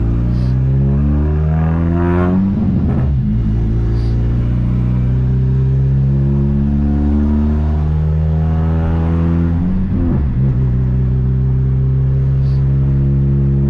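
VW Gol G2's 1.0 8-valve four-cylinder engine through an HKS sport exhaust, heard from inside the car as it pulls up through the gears. The pitch climbs twice and breaks off briefly about 3 and 10 seconds in as the gears change, then the engine runs steadily.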